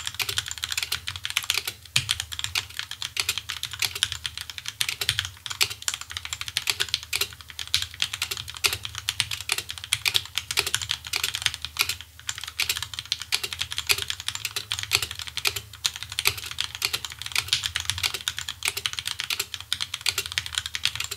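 Feker Machinic 02 mechanical keyboard, in stock form with Gateron Milky Yellow Pro linear switches, being typed on in a fast, continuous stream of keystrokes that stops suddenly at the very end.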